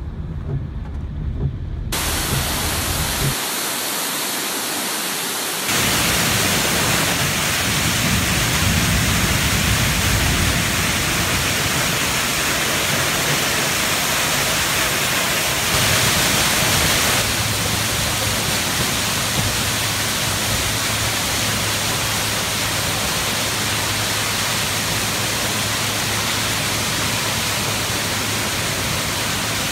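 A couple of seconds of low rumble from the car, then a loud, steady hiss of heavy rain and rushing floodwater in a flooded parking garage, stepping up and down in level a few times.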